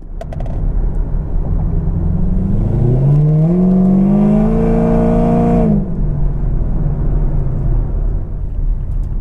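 Supercharged 6.2-litre LSA V8 of a 2015 Camaro ZL1 running while driving. About three seconds in, the engine is pulled hard and its pitch rises steadily for about three seconds, then cuts off as the throttle is lifted. It then settles back to a low, steady rumble.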